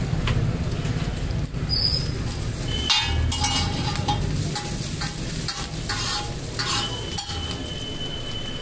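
Chow mein noodles sizzling on a hot flat griddle while steel spatulas toss them. Several sharp metal scrapes of the spatulas across the griddle come in the second half.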